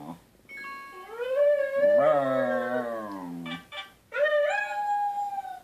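Two dogs howling back and forth over a video call, one of them heard through a laptop's speaker. There are several drawn-out howls with short breaks between them, some rising and some falling in pitch, the last rising and then holding steady.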